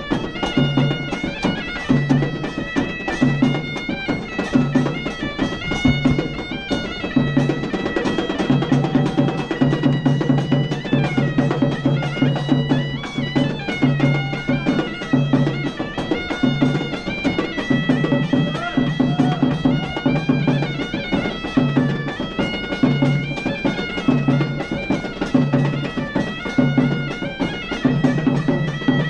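Traditional Sri Lankan dance music: a shrill reed pipe plays a winding melody over a steady, regular drum beat.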